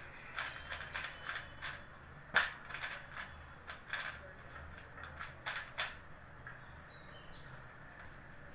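MoYu RS3M 2020 magnetic 3x3 speedcube being turned fast: a quick, irregular run of plastic clicks and clacks as the layers snap into place, thinning out to a few faint clicks about six seconds in.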